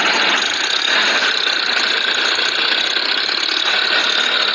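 Compact farm tractor's diesel engine running steadily, close by.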